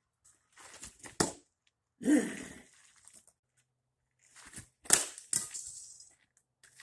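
A few sharp cracks and knocks with short bursts of rustling and scraping between them, the loudest crack about five seconds in.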